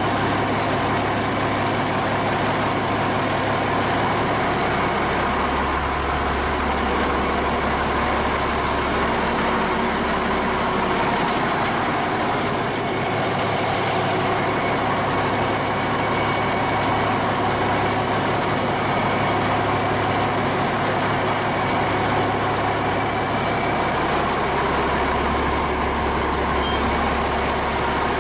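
Cummins 8.3-litre inline-six diesel engine running steadily at low speed. Its deep drone swells twice, about six seconds in and again near the end.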